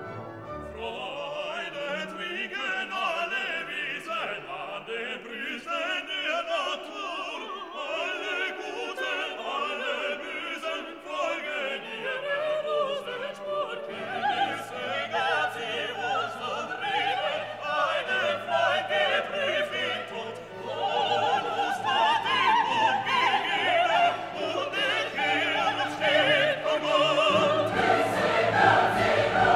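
Background music: a Filipino folk song, a group of voices singing in harmony over orchestral accompaniment, growing louder and fuller in the last third.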